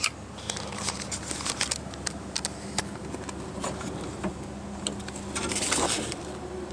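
Scattered light clicks and taps of door-handle parts and rods being handled and fitted, over a steady low hum.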